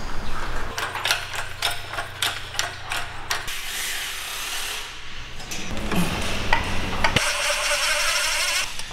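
Hand tools and an engine hoist at work: a quick run of sharp metallic clicks, then scraping, knocks and rasping on metal as the engine is worked loose on the hoist.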